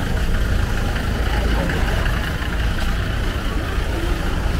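Busy street-market ambience: a steady low rumble with faint voices of people talking in the background.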